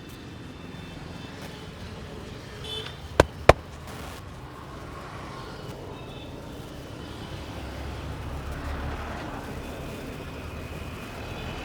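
Two sharp slaps from a street barber's hands during a head massage, about a third of a second apart, over a steady hum of road traffic.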